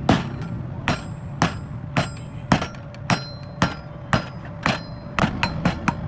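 Hand hammer striking hot iron on an anvil in steady forging blows, about two a second, each with a short metallic ring; near the end the strikes come quicker and lighter.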